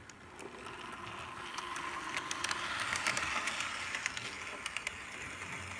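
Model of the Norfolk and Western 611 steam locomotive running along its track, a steady rolling noise from wheels and motor with frequent sharp clicks. It grows louder and is loudest about three seconds in.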